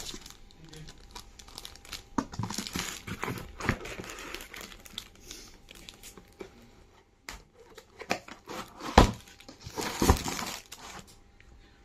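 Plastic packaging crinkling and cardboard rustling as items are handled and a cardboard box is lifted out of a corrugated shipping carton, in irregular bursts of crackle. Two louder knocks come about nine and ten seconds in, as cardboard bumps against cardboard.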